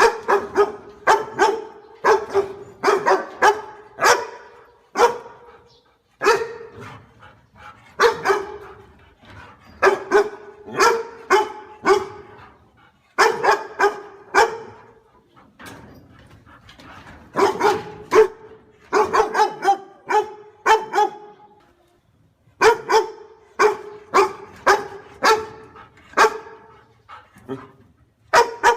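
Dog barking repeatedly in runs of several quick barks, with short pauses between the runs.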